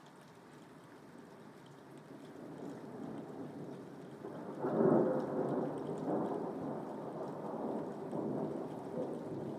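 Thunderstorm: steady rain with a roll of thunder that builds from about two seconds in, peaks in a loud clap near the middle, then rumbles on.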